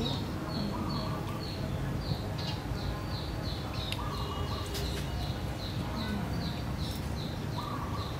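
A bird calling in a fast, even series of short descending chirps, about three or four a second, with a lower call at about one, four and eight seconds in. A few faint clicks and a steady low rumble lie underneath.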